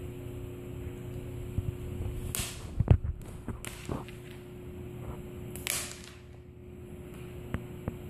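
Two quick swishes of a feather wand cat toy whipped through the air, with a sharp thump in between as the cat pounces, and a few light taps. A faint steady hum runs underneath.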